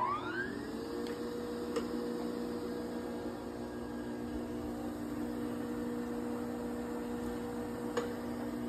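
Cincinnati cylindrical grinder's electric drive finishing its spin-up in the first second, the whine rising in pitch and then settling into a steady motor hum and whine as it runs at speed, with a couple of light clicks.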